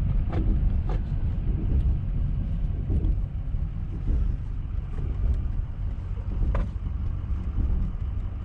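Steady low rumble of road and engine noise inside a pickup truck's cab while it tows a boat trailer. A few faint ticks and knocks come through. A vibration is felt at this moment, and it turns out to come from a trailer wheel working loose on its hub.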